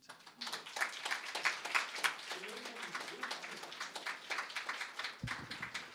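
Audience applauding, a dense patter of many hands clapping, with a faint voice partway through and a low thump near the end.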